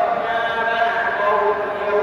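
A young man reciting the Qur'an in Arabic in a melodic, chanted style, holding long drawn-out notes that slide and step in pitch.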